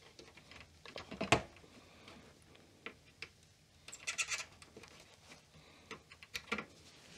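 Faint scattered clicks and light scraping of a soldering iron tip and fingers against a circuit board while the solder joints of a backup battery are being desoldered. The sharpest click comes about a second in, and a short run of scratchy ticks follows around the middle.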